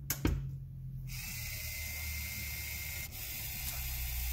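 A click as the power is switched on, then about a second in a small geared DC motor starts running with a steady whine. About three seconds in it breaks off for an instant and reverses, as the L9110 H-bridge driver switches its direction every 2 seconds.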